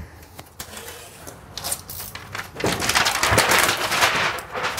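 A plastic sheet of window tint film rustling and crinkling as it is handled, starting faintly and growing louder and denser about halfway through, with a soft thump among it.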